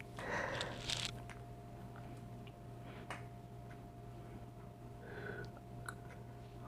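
Faint room tone with a steady low hum, a soft breath or rustle near the start and again about five seconds in, and a few scattered faint ticks.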